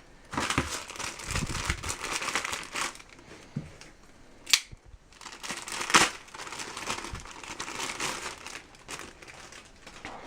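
Paper and packaging crinkling and rustling as they are handled and pulled out of a shipping box, with two sharp clicks, the louder one about six seconds in.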